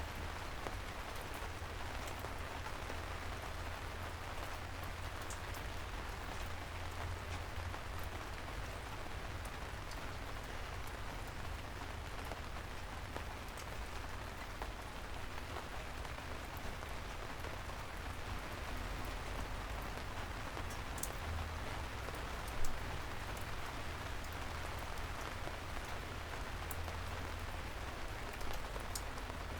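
Soft, steady rain falling on city streets, with scattered individual drops ticking and a low rumble underneath. One sharper drop or knock stands out about three-quarters of the way through.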